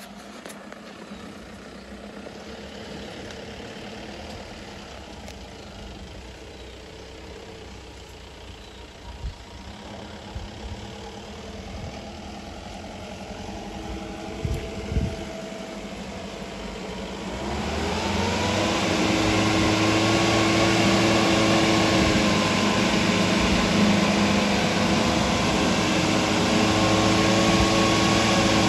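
Mahindra Bolero pickup's engine pulling along a muddy dirt track, faint at first and growing louder as it approaches. A few sharp knocks come about halfway through. About seventeen seconds in the engine revs up and holds its higher revs, loud and steady.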